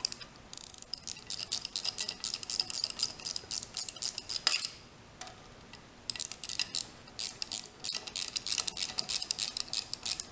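Ratcheting flex-head box wrench clicking rapidly as it is swung back and forth to run a bolt down into a steel welding table, in two runs with a pause of about a second and a half between them.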